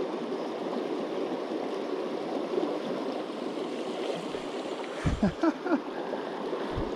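Mountain river rapids: white water rushing steadily over rocks close by. A few brief low bumps come about five seconds in and again near the end.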